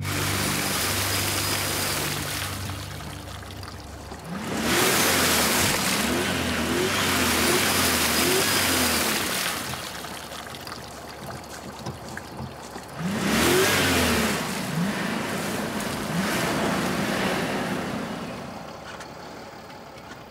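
SUV engine revving hard with its wheels spinning on a muddy track: the car is stuck. It comes in two long bursts, about four seconds in and again about thirteen seconds in, each opening with a rising whine.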